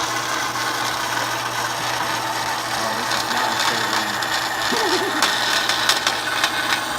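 Band saw running and cutting aluminium: a steady motor hum under the rasp of the blade, with a few sharper clicks and rattles about five to six and a half seconds in.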